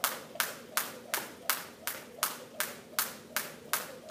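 Jump rope slapping a hard floor at a steady pace, about three sharp slaps a second.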